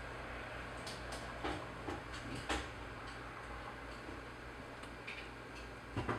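Kittens shifting and climbing in a cloth-lined cardboard box: a handful of soft clicks and scratches, a pair of them near the end, over a low steady hum.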